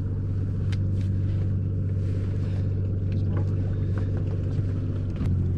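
Boat engine running steadily at idle, a low even hum, growing a little louder near the end. A few light clicks sound over it.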